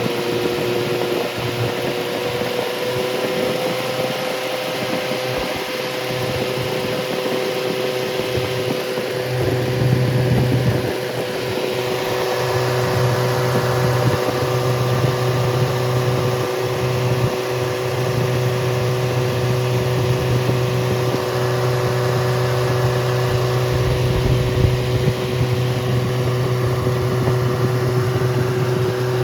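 Rebuilt Triumph Spitfire 1500 inline four-cylinder engine running without a muffler, a little bit loud. Its note changes and grows louder about ten seconds in, then holds steady.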